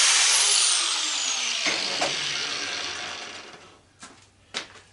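Angle grinder grinding a spot on a die-cast aluminum housing, then its motor winding down with a falling whine and the noise fading away over the next couple of seconds. Two short clicks follow near the end.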